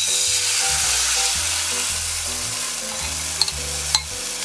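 Chana dal batter poured into hot mustard oil in a non-stick kadai sizzles at once, the sizzle easing off slowly. A few light clicks of a spatula come in the second half.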